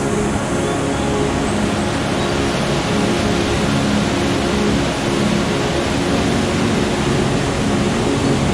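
Background music with sustained, shifting tones over a dense, steady wash of sound.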